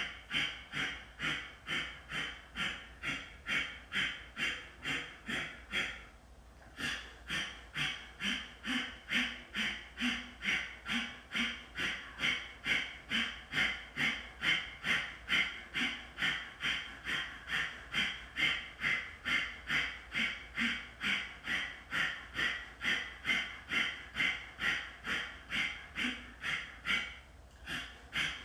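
Kapalabhati breathing: rapid, forceful exhalations through the nose, evenly paced at about two a second, with a brief pause about six seconds in and another near the end.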